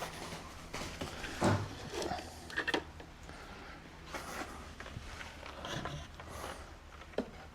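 Scattered light knocks and rustles of egg gathering from nest boxes in a hen house, with a few brief hen sounds over a low steady hum.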